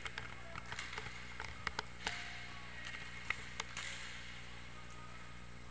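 Scattered sharp clacks of inline hockey sticks and puck during play, several in quick succession in the first half and another near the middle, over a steady hiss.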